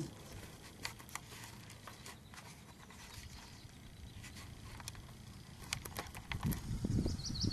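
Kayak on a pond: scattered light clicks and knocks, with a louder low rustling, splashing run of noise from about six seconds in.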